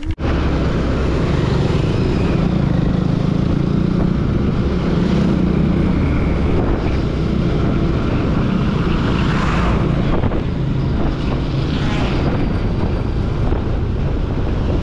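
Motorcycle engine running steadily while cruising at about 30 km/h, with wind rushing over the microphone; the sound cuts in suddenly at the start.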